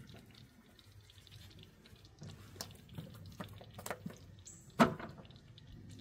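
Kitchen clatter at a cooking pot: a few scattered light clicks and knocks, then one sharp, much louder knock about five seconds in.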